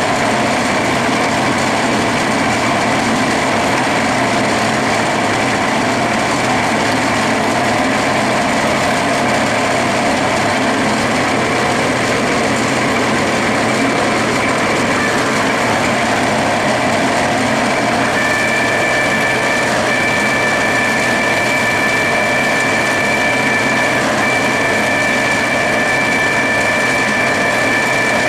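Clausing 12-inch lathe with a 3-horsepower motor running at about 200–300 RPM while an annular cutter cuts into an aluminium bar: a loud, steady machining noise. About two-thirds of the way through, a steady high-pitched whine joins in and holds to the end.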